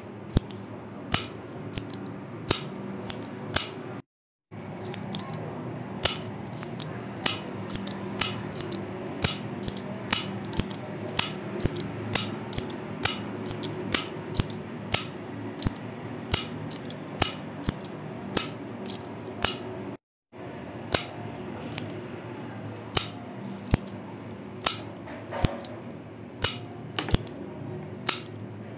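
A retractable pen's push button being clicked over and over, about two sharp clicks a second, over a steady low hum. The sound drops out to silence twice, briefly.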